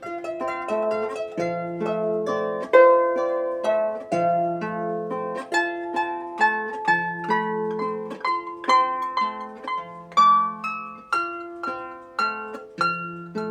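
Solo harp, tuned to about A = 432 Hz, played slowly and gently. Plucked notes ring and fade over a low bass note that repeats every two to three seconds.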